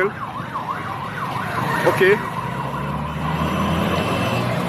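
Electronic siren sounding in fast up-and-down sweeps for the first two or three seconds, then settling and fading, with a brief voice about two seconds in.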